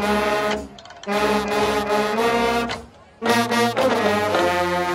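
Low brass section of trombones and sousaphones playing loud held chords, in three phrases broken by short pauses.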